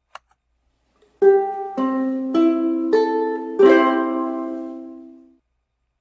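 Ukulele strummed five times, about one strum every half second, the chord changing between strums. The last chord is left to ring and fades away.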